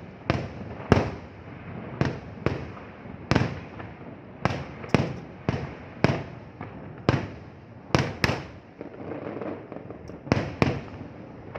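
Fireworks display: a rapid series of aerial shells bursting, about fifteen sharp bangs at half-second to one-second intervals, each trailing off in an echoing rumble.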